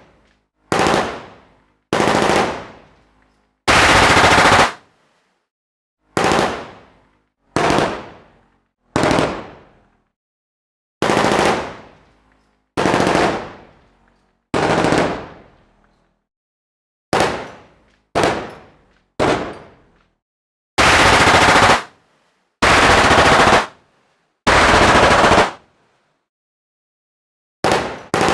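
Machine gun firing in about fifteen separate bursts with short silent gaps. Most bursts are brief and a few are held for about a second, each trailing off in an echo.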